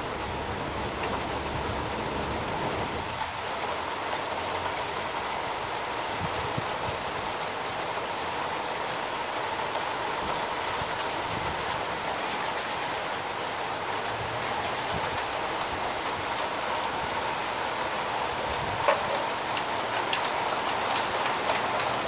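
Steady rushing background noise with a few small, sharp clicks of steel side cutters snipping gold-plated connector pins, the loudest click about nineteen seconds in.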